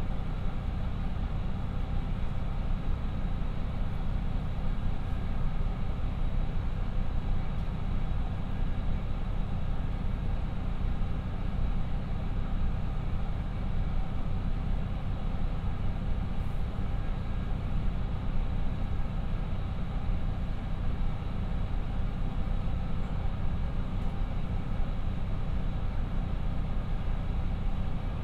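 A KiHa 54 diesel railcar's twin Niigata DMF13HS diesel engines idling steadily with the railcar stopped, heard inside the passenger cabin.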